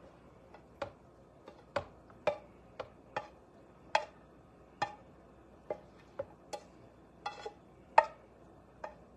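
A metal spoon knocking against a mixing bowl as the hamburger mixture is scooped and scraped in: about fifteen sharp taps at uneven intervals, each ringing briefly.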